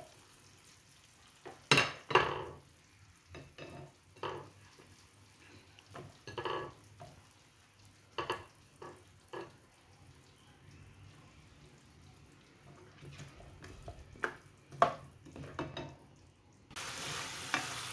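Sliced chayote tipped into a nonstick frying pan of sardines in sauce and stirred with a plastic slotted spoon: scattered knocks and scrapes of the spoon against the pan over a faint simmer. Near the end a louder, steady sizzle starts suddenly.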